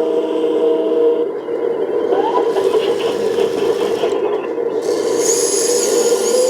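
Small electric motors and gearing of a 1/18-scale KABO RC excavator whining steadily while its electric grab works timber. The whine shifts pitch about a second in, and wood scrapes and rubs underneath.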